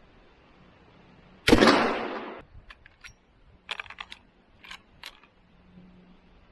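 A single rifle shot from a lever-action rifle about one and a half seconds in, its report fading over most of a second. Then a quick series of metallic clicks and clacks as the lever is worked to eject the spent case and chamber the next round.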